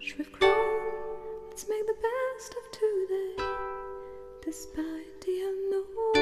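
Background music: a plucked string instrument playing a slow melody, each note starting sharply and ringing out before the next.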